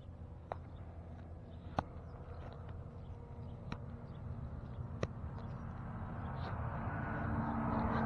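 Handling noise from wet work-gloved hands: a few sharp clicks spaced a second or so apart over faint rustling, with a low rumble that grows louder over the last couple of seconds.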